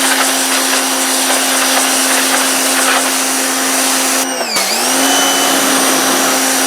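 Electric pressure washer (Powerplay Spyder 2000 PSI) running with a steady motor hum under the hiss of its water jet blasting a concrete driveway. About four and a half seconds in, the motor pitch sags briefly and comes back up.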